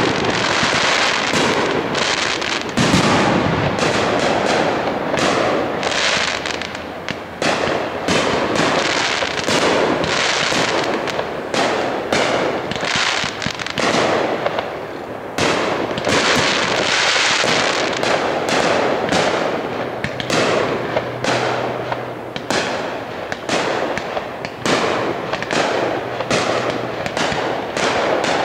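Aerial firework shells bursting in quick succession: a near-continuous run of bangs and crackling with hardly a gap.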